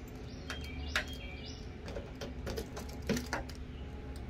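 A few sharp clicks and light metal rattles as a small diamond-plate compartment door is worked open by hand, the loudest click about a second in. Birds chirp in the background.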